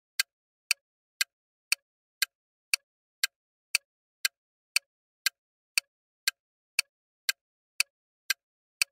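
Quiz countdown-timer ticking sound effect: sharp, evenly spaced ticks, two a second, marking the seconds left to answer.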